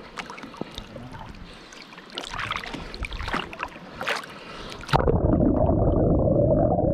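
Sea water splashing and lapping around a swimmer at the surface, with small sharp splashes. About five seconds in, the microphone goes under the water and the sound turns suddenly into a louder, muffled underwater rush with the high end gone.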